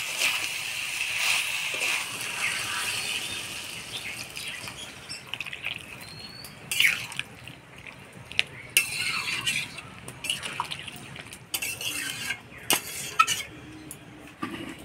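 Water added to frying masala in an iron kadai: the sizzle hisses at first and dies away over the first few seconds. Then a spoon stirs the curry, with scattered clicks and scrapes against the pan.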